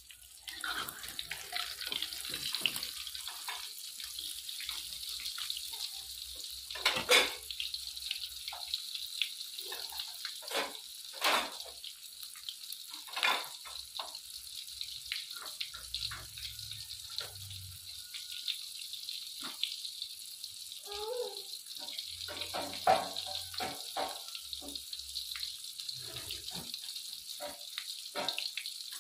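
White bread sizzling as it fries in a pan, a steady crackling hiss, with occasional clicks and knocks of a utensil against the pan.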